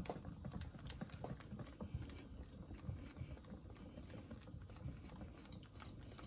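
Light, irregular clicks and taps of a kitchen utensil against a bowl while the sauce is mixed.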